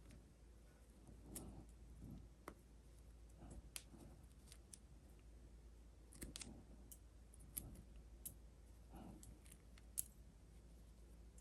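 Faint, scattered clicks and soft taps of small plastic toy pieces being handled, with one sharper click about ten seconds in.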